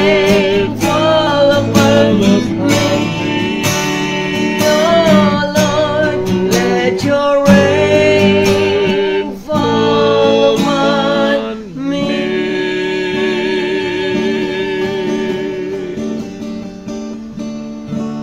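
A woman and a man singing together to a strummed acoustic guitar. About twelve seconds in the strumming stops and long held sung notes fade out over the last ringing chord as the song ends.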